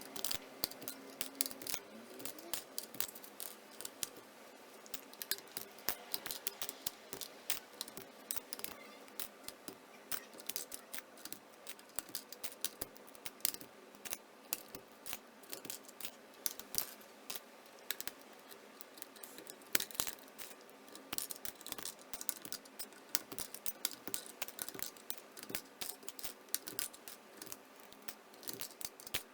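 Small irregular plastic clicks and clacks, often several a second, from a Keychron K1 mechanical keyboard being handled and worked on during cleaning.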